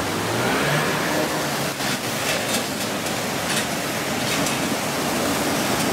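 Floodwater rushing steadily across a road, a dense even noise, with a few short sharp sounds in the middle.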